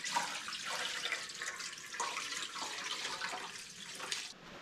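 Water running steadily in a splashing stream, cutting off abruptly near the end.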